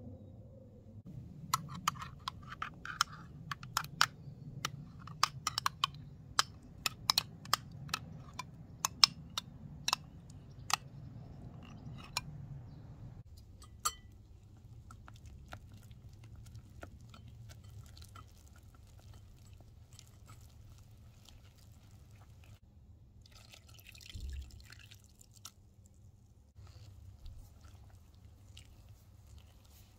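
Metal balloon whisk mixing pancake batter in a glass bowl. For the first dozen seconds its wires click sharply and irregularly against the glass; after that come softer ticks and wet stirring.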